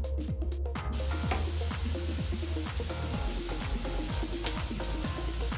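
Chopped onions and garlic sizzling in hot oil in a nonstick wok, the sizzle coming in about a second in. Background music with a steady beat runs underneath.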